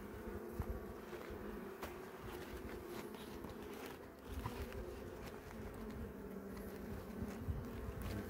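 Honeybees buzzing steadily from an opened hive, a low even hum with a few faint clicks over it.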